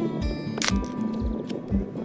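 Background music with a steady beat, about two beats a second, over held tones; a sharp percussive hit sounds about half a second in.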